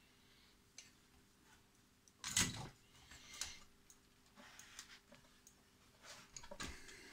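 Handling noise from an opened bench power supply's metal case and aluminium heatsinks being gripped and shifted on the bench: scattered knocks and light rattles, the loudest a single knock about two and a half seconds in, with another cluster near the end. A faint steady hum sits underneath.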